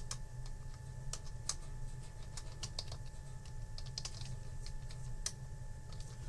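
Typing on a computer keyboard: irregular key clicks, single strokes and short runs, over a steady low hum.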